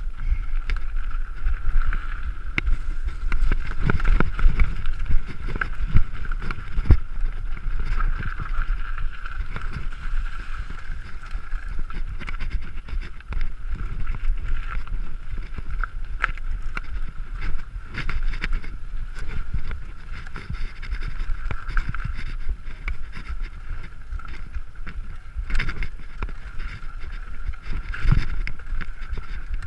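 Mountain bike ridden along a rough dirt trail: a steady rattle of the bike with frequent sharp knocks over bumps, under wind buffeting the microphone.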